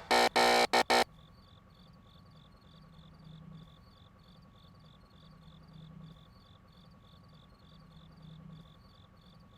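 Crickets chirping steadily, about two or three chirps a second. At the start comes a loud, brief tone cut into a few short pieces.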